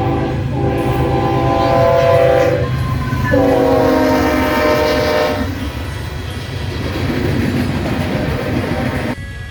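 Train horn sounding a multi-note chord in three blasts: the end of one about half a second in, then two long blasts. After the horn stops comes the noise of the train running on the rails, which cuts off suddenly near the end.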